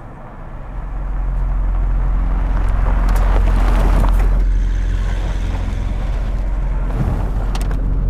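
Engines of an armoured SUV and an old military truck driving on a dirt road: a deep, steady rumble that swells about a second in, with a louder rush of noise around the middle as they pass.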